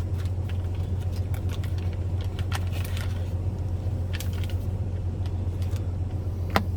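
Steady low hum of an idling truck engine, with scattered crinkles and clicks from a packet of tortillas being opened and handled, and one sharper click near the end.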